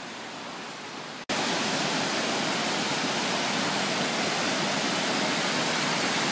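Steady rushing of a waterfall. About a second in it cuts out for an instant and comes back clearly louder.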